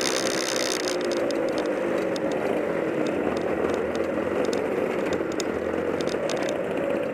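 Junior racing kart's two-stroke engine running at low revs as the kart rolls slowly, heard from the onboard camera, with scattered light rattling and ticking from the kart.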